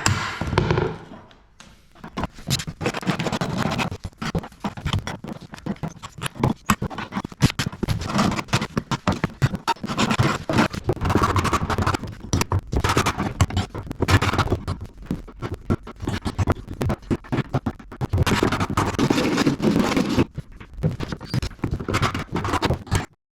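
A tool scraping against the stairs with rapid, irregular knocks, steady work with only brief pauses.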